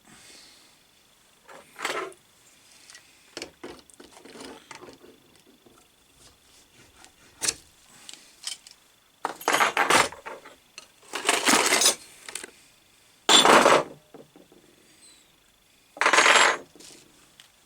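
Metal parts of a lathe fixed steady being handled and worked: scattered clinks and taps, then four louder harsh scraping strokes, each about a second long, in the second half.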